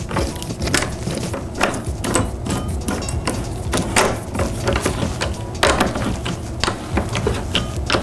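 Skate tool socket turning a longboard truck's kingpin nut down onto the bushing: sharp metal clicks and scrapes about once a second as the nut is tightened.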